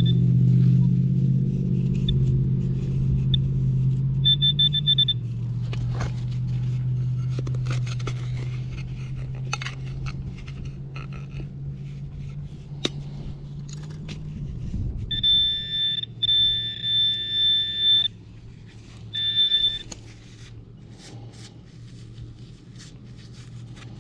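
Metal detector giving high-pitched target tones: a short beep about four seconds in, then longer tones for about three seconds around fifteen seconds in and again briefly near twenty seconds, signalling buried metal under the coil. Under them is a steady low engine hum that fades out about fifteen seconds in, with scattered clicks and scrapes of digging.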